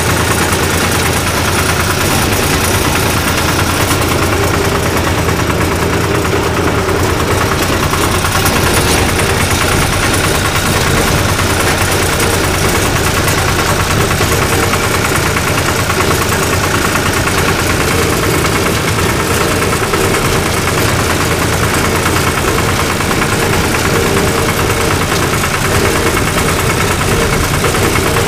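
1974 Long 350 diesel farm tractor engine running steadily.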